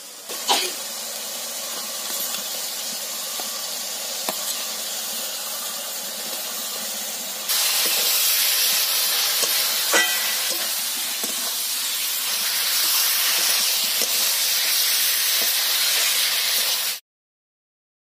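Cauliflower and potato pieces sizzling as they fry in hot spiced oil in a wok, starting with a sharp hiss as they go in. A metal spatula stirring them clicks against the pan now and then. The sizzle gets louder about seven seconds in and cuts off suddenly about a second before the end.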